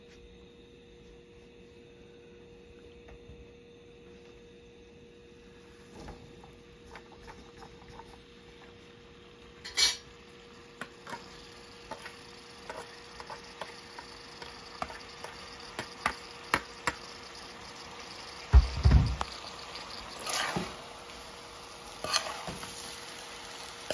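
Vegetables cooking in a hot pan: after a faint steady hum, a loud metal clank about ten seconds in is followed by a soft sizzle. A utensil clinks and knocks against the pan as they are stirred, with a heavy thud a little before the end.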